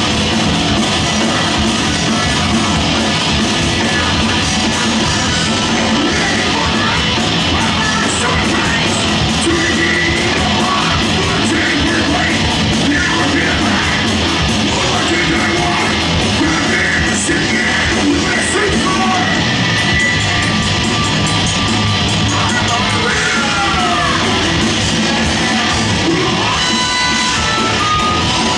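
Live heavy metal band playing: electric guitars, bass and drum kit, with a singer yelling over the music. The sound is loud and unbroken.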